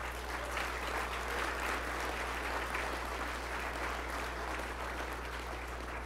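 Audience applauding: dense, steady clapping that begins at once and eases off near the end.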